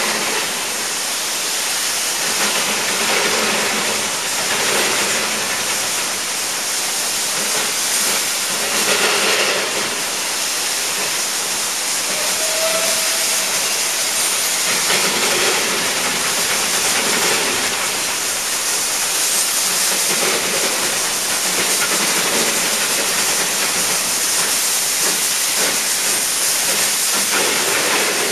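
Garratt steam locomotive No. 138 hissing steam and exhausting in irregular, uneven bursts as it pulls away slowly; the wheels are slipping for lack of grip on damp rails.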